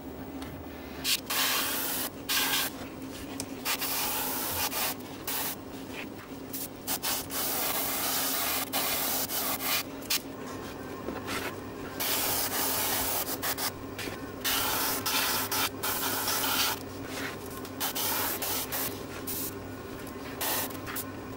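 Airbrush spraying paint in short hissing bursts that start and stop every second or so, over a steady low hum.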